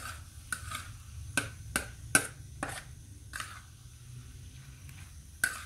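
A metal skimmer clinking and scraping against a wide steel pan while liver and mushrooms are stirred. There are about seven sharp, ringing clinks in the first three and a half seconds and one more near the end.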